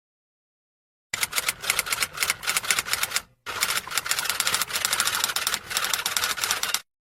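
Rapid typing: a quick run of keystroke clicks, a brief pause a little past the middle, then a second run that stops shortly before the end.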